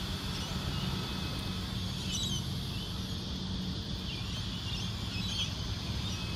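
Outdoor ambience: a steady low rumble with short high bird chirps about two seconds in and again about five seconds in.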